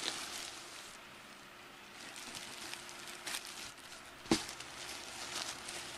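Clear plastic wrapping around a pillow crinkling and rustling as it is handled, with one sharp knock a little after four seconds in.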